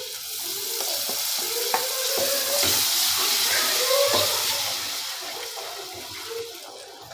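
Tomato purée sizzling as it hits hot oil and spices in a kadhai, stirred with a wooden spoon. The hiss swells, holds for a few seconds and dies down near the end, with a few light knocks of the spoon.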